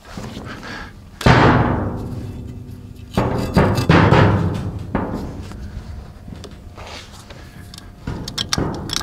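Heavy knocks on a large steel loader bucket, each leaving a booming ring that dies away over a second or so: one a little over a second in, then three in quick succession around three to four seconds in. Lighter metallic clicks follow near the end.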